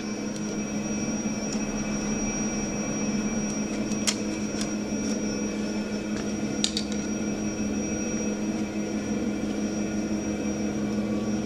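Steady machine hum with a faint high whine, broken by a few light metallic clicks about four and six and a half seconds in, from a long screwdriver working the flathead screws of the milling machine's front cover.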